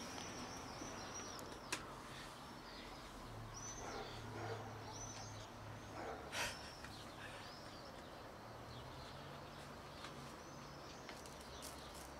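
Small birds chirping, with short high chirps repeating throughout over a faint steady hum. A brief louder sound comes about six seconds in.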